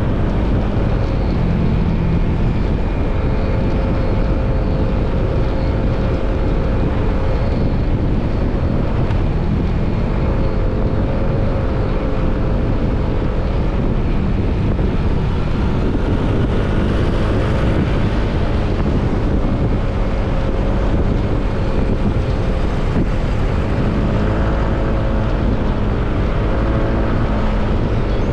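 Motorcycle engine running while riding, its pitch rising and falling gently with the throttle, over a steady rush of wind and road noise on the microphone.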